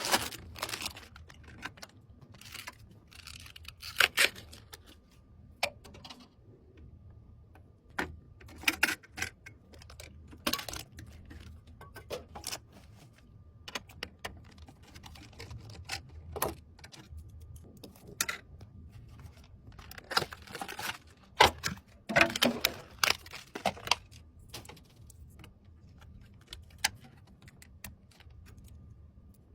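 Irregular clicks, taps and short light rattles of small hard parts being handled, as when PC components are being fitted during a build, with a denser clatter of clicks about two-thirds of the way through.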